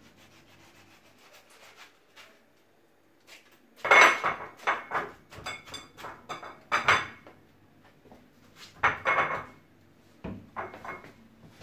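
Kitchen knife slicing through a watermelon on a wooden cutting board: after a few quiet seconds, a run of crunching cuts and knocks on the board, then two shorter bursts as slices are cut and set down on ceramic plates.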